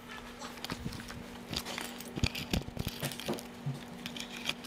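Scattered clicks, knocks and rustling from the camera being handled and set down, over a faint steady electrical hum.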